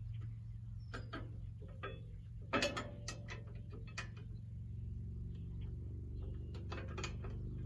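Yanmar SA324 compact tractor's three-cylinder diesel engine idling steadily, with scattered sharp metallic clicks and clanks, the loudest about two and a half seconds in.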